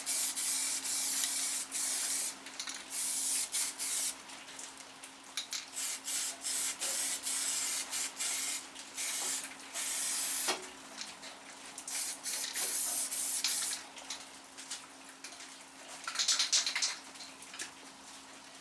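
Primer being sprayed in repeated short hissing bursts with brief pauses between them, one louder burst near the end.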